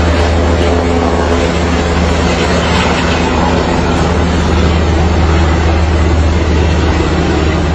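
Helicopter running steadily, a loud continuous engine and rotor drone with a strong low hum.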